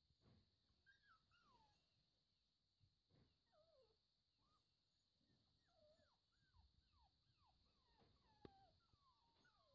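Faint whimpering from seven-week-old Brittany puppies: a string of short, falling cries that starts about a second in and comes more often in the second half. A single sharp click about eight and a half seconds in.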